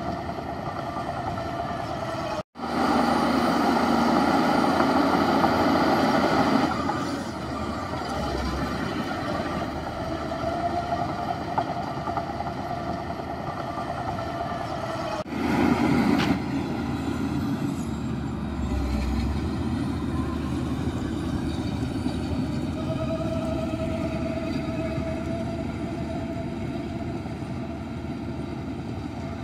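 Diesel engines of a bulldozer and dump truck at work, running steadily. The sound cuts out for an instant about two and a half seconds in and comes back louder for a few seconds, with another short rise in level near the middle.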